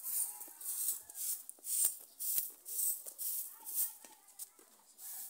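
Footsteps scuffing on a gritty concrete path at a walking pace, a crisp scraping about two to three times a second.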